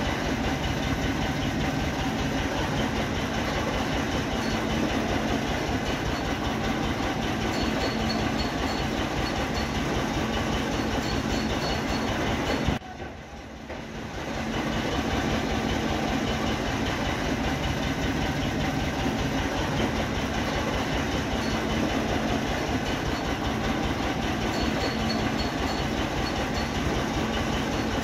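Steady machine running noise with a fast, even rattle and a low hum. It drops out briefly about halfway through, then carries on unchanged.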